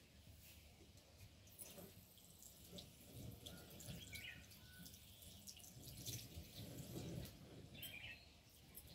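Near silence: faint background with a few soft ticks and a couple of faint chirps.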